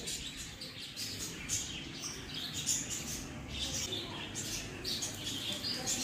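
Small pet birds in an aviary chirping, short high calls scattered throughout, over a faint low steady hum.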